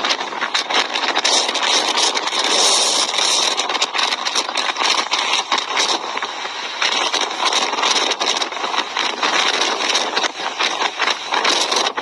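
Strong storm wind blowing across a ship's deck at sea: a loud, steady rushing noise that flutters and gusts without let-up.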